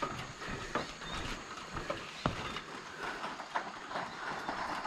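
Irregular hollow knocks on the wooden plank deck of a suspension bridge, about one every second or so, over a steady hiss.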